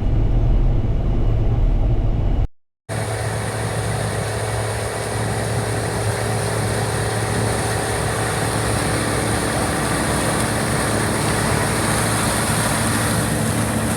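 Heavy farm machinery engine running steadily during corn harvest. The sound cuts off for a moment about two and a half seconds in, then resumes as a steady machine noise with a strong high hiss over the engine hum.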